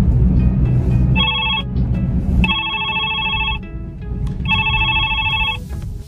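A telephone ringtone trilling in three bursts, a short one then two longer rings, over background music.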